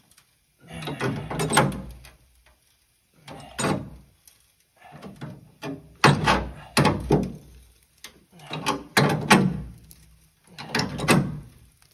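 Bent, rusted steel step edge of an old bus creaking as it is levered straight with a pipe wrench, in about six separate pulls a second or so long, each creak falling in pitch.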